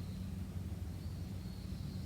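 Bamboo-forest ambience: a steady low hum with faint, high bird chirps in the second half.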